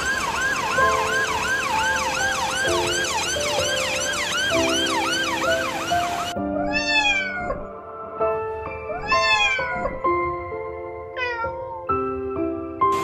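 An ambulance siren yelps in fast rising-and-falling sweeps, about two and a half a second, then cuts off suddenly about six seconds in. A cat meows three times after that. Soft background music with held notes plays throughout.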